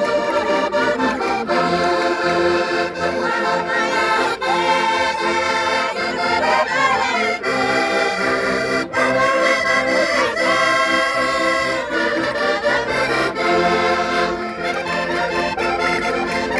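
Concertinas playing a traditional folk tune: sustained reedy chords and melody without a pause.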